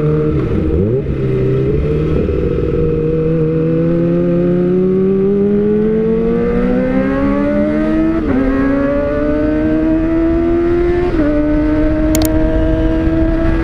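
Kawasaki ZX-25R's 250 cc inline-four engine through an Austin Racing slip-on exhaust, under way and accelerating. The revs climb steadily, drop sharply at an upshift about eight seconds in and again about eleven seconds in, then hold nearly steady. The rider calls the exhaust fairly loud.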